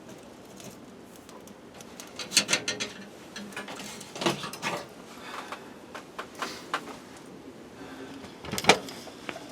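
Scattered knocks and rattles of objects being handled: a quick cluster about two seconds in, a few more in the middle, and a sharp knock near the end.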